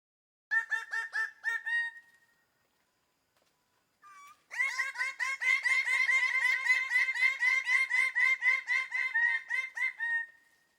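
A bird calling in quick runs of short repeated notes, about five a second: a brief run about half a second in, then a longer run from about four and a half seconds to near the end.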